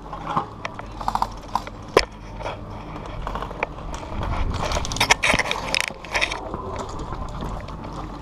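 Irregular clicks, knocks and rattling from an airsoft player's gun and gear, with one sharp crack about two seconds in and a dense run of rattling around five seconds.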